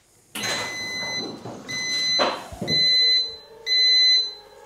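A car lift letting the car down: a hiss as it starts to lower, and a warning beeper sounding about once a second, each beep a steady high tone.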